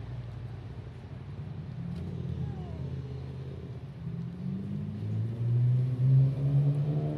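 A motor vehicle's engine running with a low rumble, rising in pitch and getting louder over the last few seconds.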